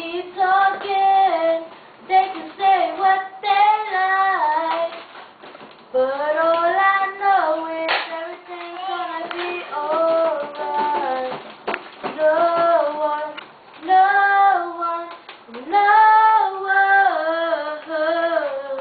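A young girl singing a song solo, in phrases of held notes that step up and down, with short breaks for breath between phrases.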